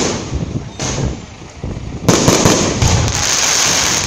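Aerial fireworks going off: a sharp bang at the start and another just under a second in. From about two seconds in, a dense crackling runs on until just before the end, as a shell's crackling stars scatter into glittering sparks.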